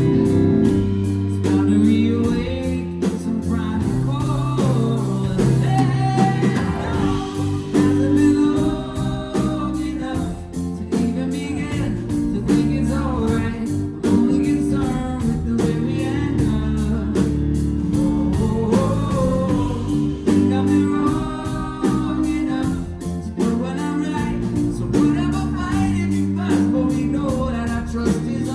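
Live band playing a pop-rock song, with guitar, bass and a steady drum beat under a singing lead voice.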